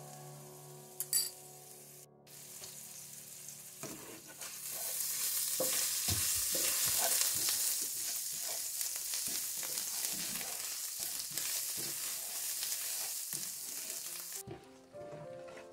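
Food sizzling in a hot frying pan while a spatula stirs and scrapes through it. The sizzle starts about four seconds in and cuts off near the end.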